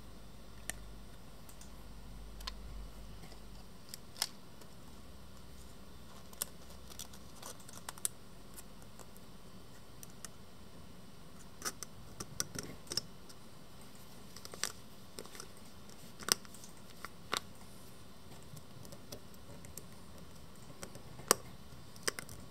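Scattered sharp clicks and taps of fingertips and fingernails on an Irix lens's metal rear mount and rear filter holder while a gelatin ND filter is pressed into place, over a steady faint hiss. The clicks are sparse at first and come more often in the second half.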